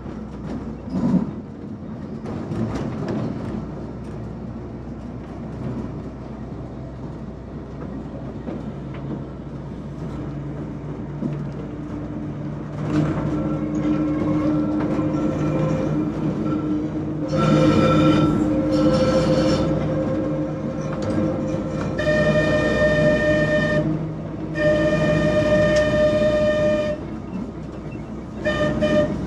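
Manx Electric Railway tram running along its track: a steady rumble and hum of wheels on rail. In the second half, four high shrill tones, each held at one pitch: two short ones, then two lasting about two seconds each.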